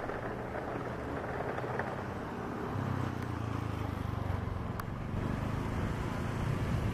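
Steady engine and propeller drone of a KAI KT-1 Woongbi single-engine turboprop trainer flying overhead, growing a little louder and deeper about three seconds in.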